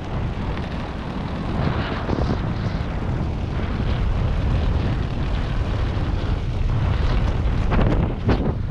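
Heavy wind rush buffeting a skydiver's camera microphone in freefall, then a skydiving parachute opening near the end with its fabric flapping and snapping in the airflow.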